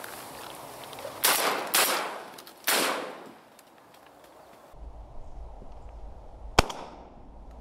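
Winchester SX3 semi-automatic shotgun firing three shots in quick succession, each trailing off with an echo, then one sharper, louder shot near the end.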